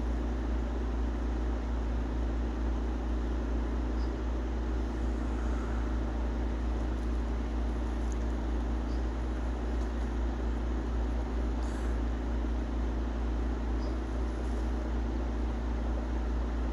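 A steady low mechanical hum over a faint hiss, with a few faint high ticks.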